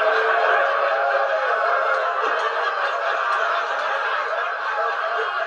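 Studio audience laughing steadily, heard through a TV's speaker, thin with no low end.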